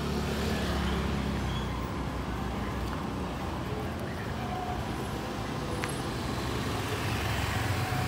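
Street traffic: motor scooters and cars running past on a road, a steady engine hum.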